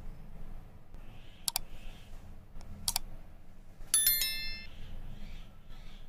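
Two sharp mouse-click sound effects about a second and a half apart, then a short bright bell chime, the sound effect of a like-subscribe-bell button animation.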